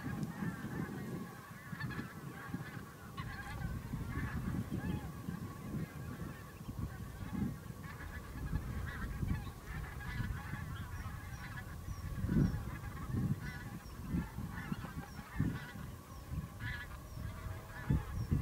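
A flock of geese honking continuously, many calls overlapping, over a low uneven rumble.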